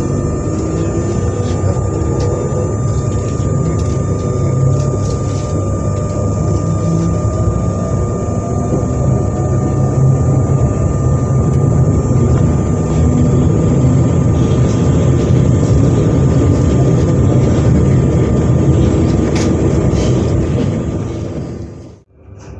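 Z 20500-class double-deck electric commuter train standing at the platform with its onboard equipment running: a steady low hum under a constant high whine, with some tones rising over the first few seconds. The sound drops away abruptly near the end.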